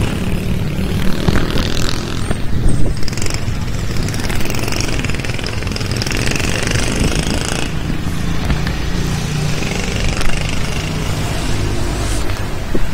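Wind rumbling on an action camera's microphone as a bicycle rolls along a town street, with motor traffic running nearby.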